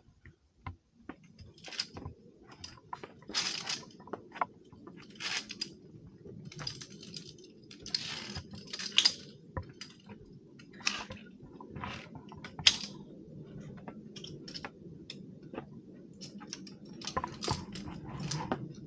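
Climbing gear on a via ferrata clicking and scraping in irregular bursts: carabiners clinking and sliding on the steel cable, with scuffs against rock, over a low steady rumble.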